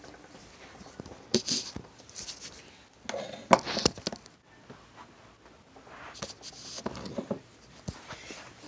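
Handling noise from a phone camera held against a cotton t-shirt: fabric rubbing over the microphone and scattered knocks and bumps, the loudest about three and a half seconds in.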